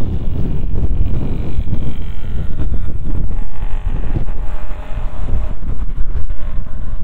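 Wind buffeting the camera microphone: a loud, gusty low rumble that swells and dips unevenly.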